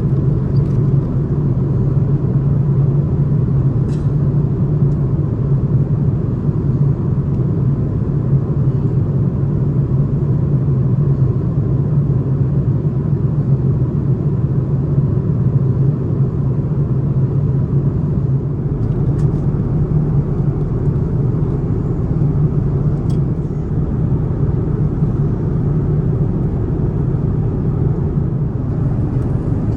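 Airbus A330neo cabin noise: the steady low rumble of the engines and airflow heard from inside the passenger cabin, with a few faint ticks.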